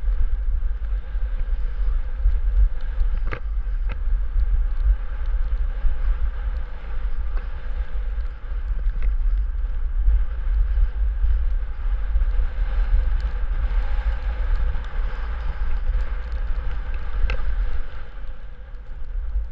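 Wind buffeting the microphone: a loud, steady low rumble that gusts up and down, with a faint steady hum above it and two brief clicks, one about three seconds in and one near the end.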